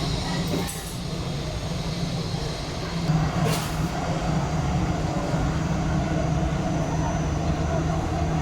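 Aircraft engines running with a steady low rumble, with one sharp click about three and a half seconds in.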